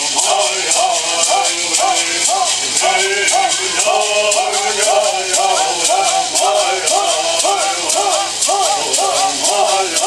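A group of men singing a Hualapai bird song in unison, the short arched melody phrase repeating over and over, while they shake gourd rattles in a steady quick beat.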